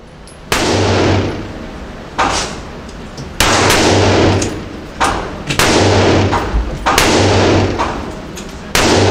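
Gunshots from other lanes of an indoor shooting range: about seven irregularly spaced shots, each followed by a long echoing decay in the enclosed range.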